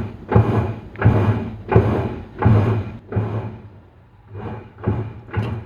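Washing machine running through its wash cycle: a rhythm of swishing thumps, each with a low hum, about every three-quarters of a second, with a short lull near four seconds before they come back closer together.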